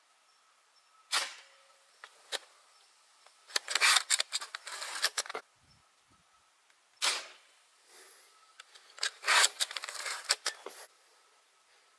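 Repeating crossbow slingshot rifle being shot twice: each round is a sharp snap, then a quick burst of mechanical clicking and rattling from the rifle's mechanism. The two rounds come about six seconds apart.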